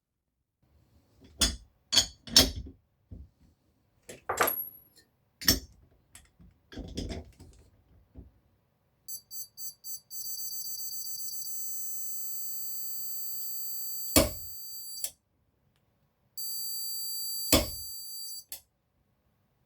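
Metal tool clicks and knocks, then a few short electronic beeps running into a steady high beeping tone from a digital torque tester as the wrench is pulled. A split beam torque wrench gives one sharp click while the tone sounds, signalling that the set torque is reached, and the tone stops; a second shorter tone follows with another sharp click.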